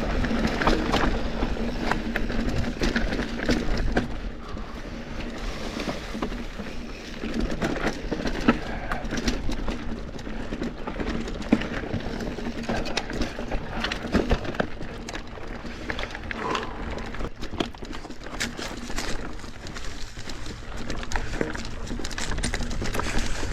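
Cross-country mountain bike with 100 mm suspension riding over rocky, chunky trail: a constant irregular clatter of knocks and rattles from the bike hitting rocks, over a low wind rumble on the microphone.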